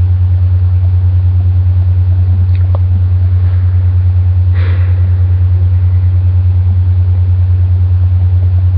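A loud, steady low hum that pulses quickly and evenly, with no speech over it.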